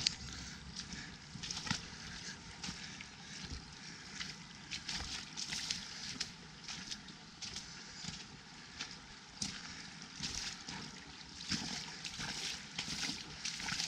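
Footsteps squelching and splashing through mud and shallow floodwater at a steady walking pace, a little under two steps a second, over a low wind rumble.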